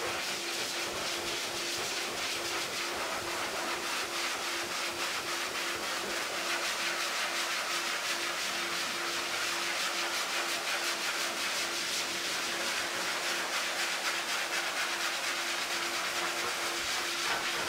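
High-velocity pet dryer blasting air through a hose nozzle into a large dog's thick plush coat: a steady rushing hiss of air over a constant faint hum.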